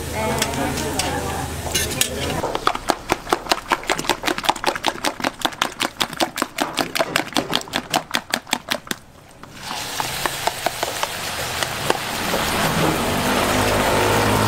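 Rapid, even clatter of a cooking utensil stirring or beating in a bowl, about six strokes a second, which stops suddenly a little after nine seconds in. It is followed by food sizzling and frying on a hot griddle, growing louder toward the end.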